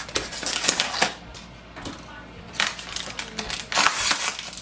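Plastic packaging wrap crinkling and rustling as it is gripped and pulled out of the printer's box, with crackles clustered near the start and again past the middle.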